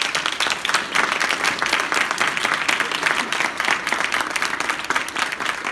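Audience applauding loudly, with some hands clapping close by.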